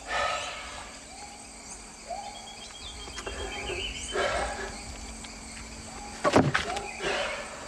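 Outdoor animal sounds: a short call repeating about once a second, a brief run of thin, high, rapid chirps, and a faint steady hum. There is some rustling, and one sharp knock about six seconds in.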